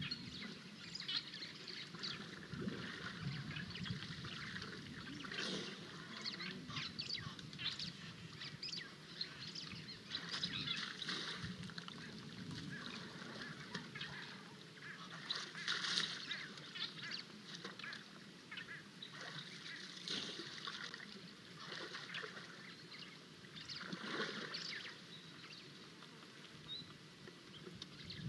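Birds calling over and over, with the sloshing and splashing of a young African elephant wading in a muddy waterhole. The calls are strongest about halfway through and again near the end.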